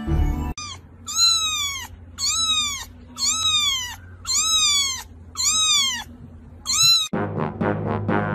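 A young kitten meowing over and over: about seven high-pitched mews roughly a second apart, each rising briefly and then falling in pitch. Music comes in near the end.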